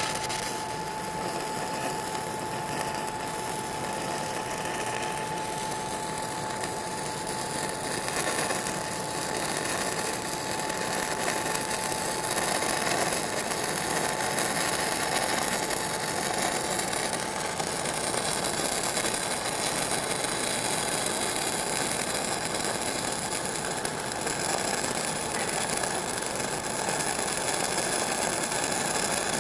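Stick-welding arc of an E6010 electrode running a downhill root pass at about 85 amps: a steady crackling hiss that goes on without a break.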